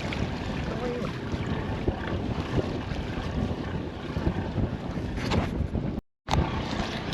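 Wind buffeting the microphone over the steady rumble of a boat and water noise. The sound cuts out completely for a moment about six seconds in.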